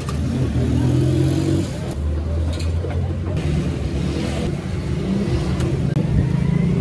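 Road traffic: motor vehicle engines running and revving, with the engine sound swelling and fading.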